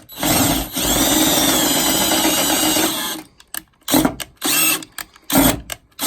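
Power drill running steadily for about three seconds, then given four or five short trigger bursts.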